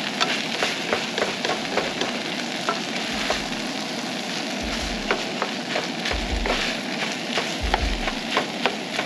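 Fried rice sizzling in a frying pan on a camp stove, with many sharp clicks and scrapes as a wooden spatula stirs and turns it.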